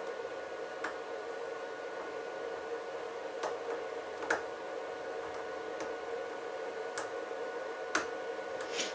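Small Yale padlock being picked: scattered light metallic clicks, about six of them at irregular intervals, as the pick and tension wrench work the pins in the keyway, over a faint steady hum.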